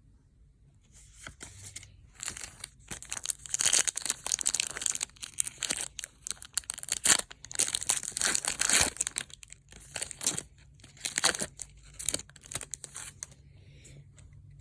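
Pokémon Celebrations booster pack's foil wrapper being torn open and crinkled: a run of tearing, crackling rustles that starts about a second in, is loudest in the middle, and dies away near the end.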